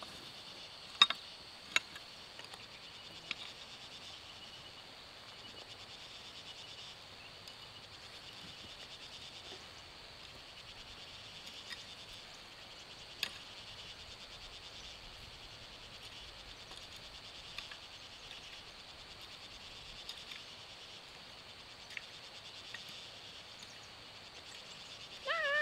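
Steady high insect chorus, with a few sharp knocks and taps, the loudest about a second in and again just under two seconds in.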